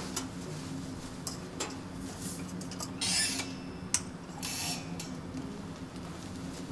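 Examination lamp on an articulated arm being swung and aimed by hand: short scraping, rustling noises and one sharp click from the lamp head and its joints, over a steady low hum.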